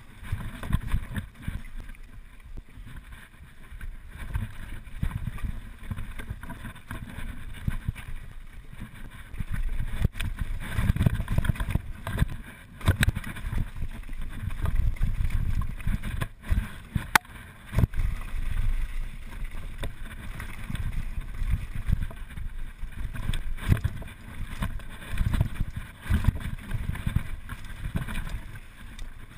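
Mountain bike riding fast downhill over rough dirt trail: wind buffeting the microphone and the uneven rumble and rattle of the tyres and bike, with a few sharp knocks from bumps along the way.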